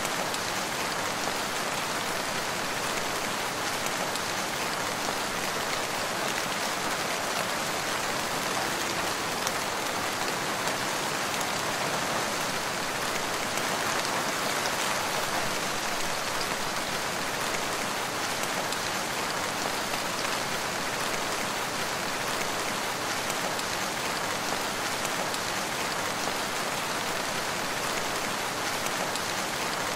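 Steady rain falling in a forest, an even hiss of many drops on leaves and ground.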